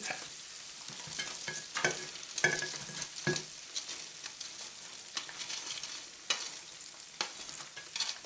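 Hot oil sizzling steadily in an electric deep fryer, with irregular clicks, taps and scrapes of a metal spatula working fried pieces out of a perforated metal fryer basket onto a plate.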